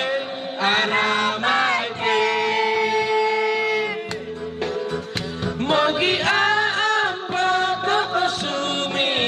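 A woman singing a song into a microphone over instrumental backing music, holding long notes between short breaks.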